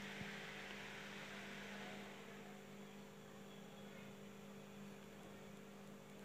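Faint steady mains-type hum, with a light hiss that fades after about two seconds.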